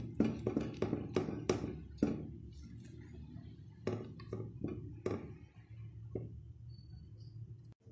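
Silicone spatula stirring thick, reduced condensed milk in a saucepan: quick scraping and tapping strokes against the pan, closely spaced for the first two seconds, then a few more strokes later and one last one about six seconds in.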